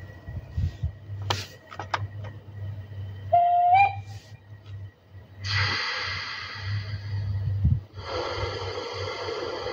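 A G-scale model steam locomotive's sound unit: a short whistle that rises slightly about a third of the way in, then two long hisses of steam, over a low hum and a few clicks.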